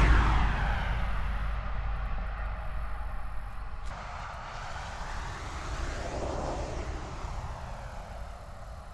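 A car passes close by, loudest at the very start, and its noise fades away over several seconds, with a fainter swell of passing traffic about six seconds in.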